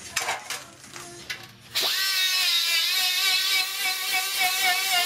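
A few handling clicks and knocks, then a small cut-off wheel spins up a little under two seconds in and cuts into a steel gas tank with a steady high whine, cutting out a rust hole.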